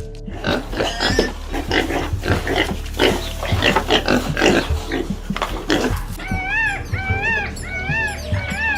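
Pigs grunting and squealing for about six seconds. Then a series of about six honking calls from a large bird, each with a wavering pitch.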